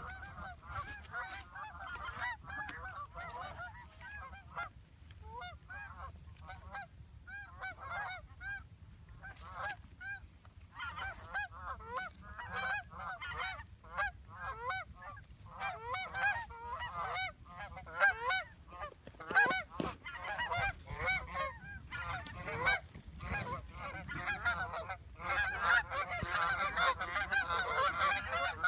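Canada geese honking and clucking, many short calls overlapping; the calling thins for a few seconds, then grows dense and continuous near the end.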